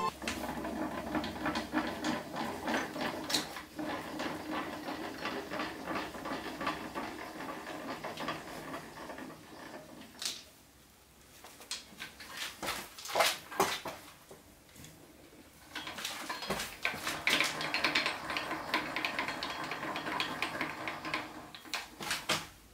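Irregular metallic clattering and rattling in two stretches, with a quieter pause between them broken by a few sharp clanks.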